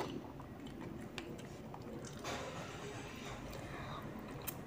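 Mouth sounds of eating mie ayam chicken noodles: a hissing slurp of about a second around the middle, with chewing and a few faint clicks.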